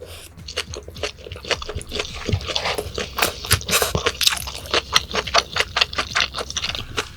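Close-miked chewing of a mouthful of raw yellowtail sashimi: quick, wet, irregular smacking clicks, several a second.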